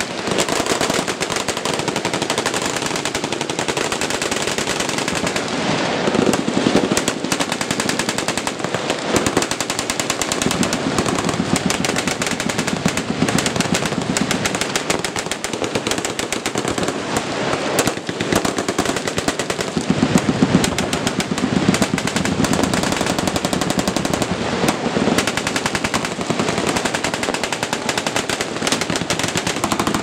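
Many machine guns firing full-auto together from a firing line, their overlapping bursts running into one continuous barrage of gunfire.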